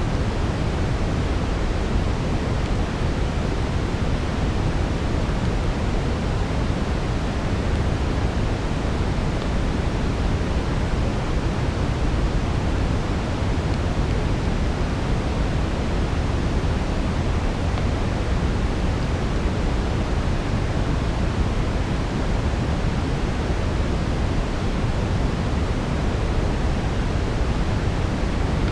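Steady brown noise: an even, deep hiss strongest in the low end, with no change in level.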